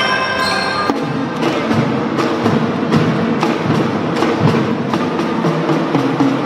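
Children's drum band playing: held ringing mallet-bell tones for about the first second, then the percussion section takes over with a steady beat of sharp drum strokes.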